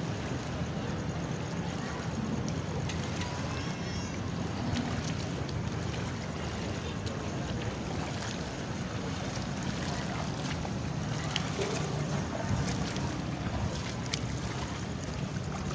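Steady wind and lapping water around a wooden fishing boat in shallow water, with a few light splashes from wading.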